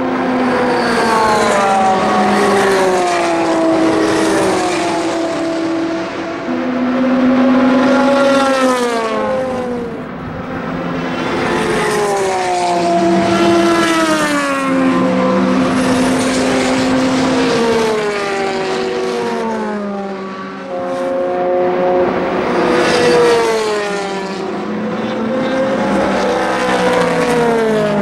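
Endurance race cars, both GT cars and a sports prototype, passing one after another through a fast bend. Their engine notes overlap and sweep down in pitch as each car goes by, with some rising again as they accelerate away.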